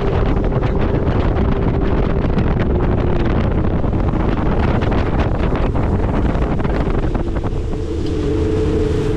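Jet boat running underway, its engine droning under heavy wind buffeting on the microphone. The engine note drops a little about three seconds in and rises again near the end.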